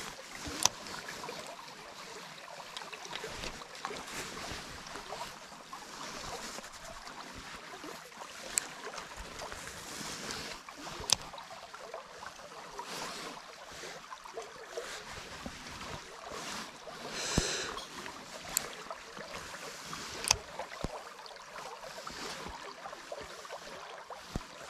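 Mountain stream water rushing steadily, with a few sharp clicks scattered through and a short fluttering burst about two-thirds of the way in.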